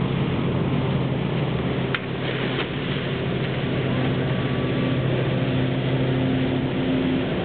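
A boat's engine running steadily at idle, a low even hum with several steady tones, with a brief click about two seconds in.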